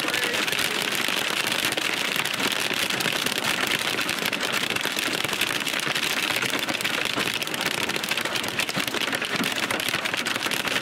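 Heavy rain hitting a vehicle's windshield and roof, heard from inside the cabin: a dense, steady clatter of drops.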